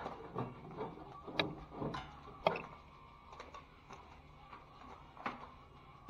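Drywall knife scraping at loose paper tape on a drywall ceiling seam: short rough scrapes and a series of irregular sharp clicks and knocks, busier in the first half.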